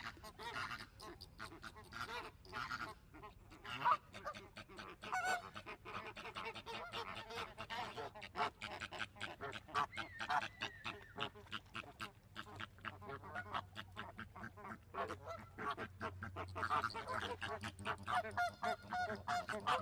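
A flock of flamingos calling, with many short honking calls overlapping in a constant chatter.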